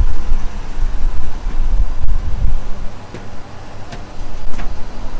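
Loud, unsteady low rumble with wind buffeting the microphone, and a few faint clicks in the second half.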